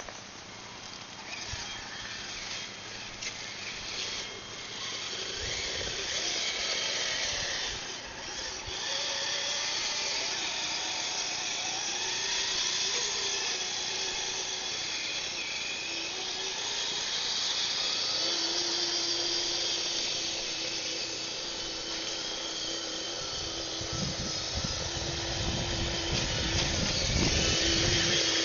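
Whine of a radio-controlled Blizzard SR snow tractor's electric motor and gearbox as it drives, the pitch shifting up and down with the throttle. Heavier rumbling joins in near the end.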